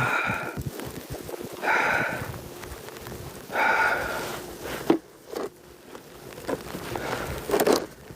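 A snow shovel scraping over pavement in three long strokes about two seconds apart, the blade ringing as it scrapes, followed by several shorter scrapes and knocks.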